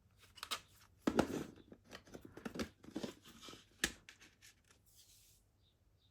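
Plastic wrapping on a CD case being torn and crinkled in a quick, irregular crackle for several seconds, with one sharp click about four seconds in.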